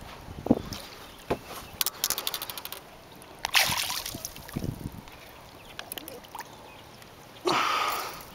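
Water splashing and sloshing as a large muskie thrashes beside the boat while being landed by hand. A couple of sharp knocks come early, then a quick run of clicks about two seconds in. The loudest splashes come about three and a half seconds in and again near the end.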